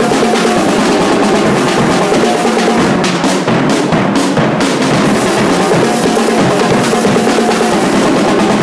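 Marching band drum line playing a steady, driving cadence on snare and bass drums.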